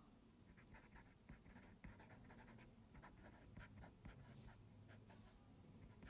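Stylus writing on a tablet screen: faint, quick taps and scratches as words are handwritten.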